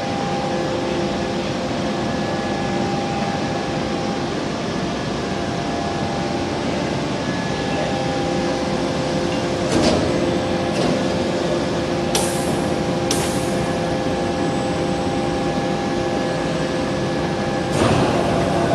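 Hot forging line running: a steady machinery hum carrying several steady tones, broken by a metallic knock about halfway through and another near the end. Two short, sharp hissing blasts come a few seconds after the first knock.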